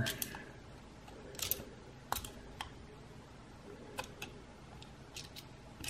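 A handful of light, irregular metal clicks as the depth rod of a stainless steel caliper is slid into the outer bushing and touched against the end of the Singer 101 potted motor's shaft, measuring how deep the shaft sits.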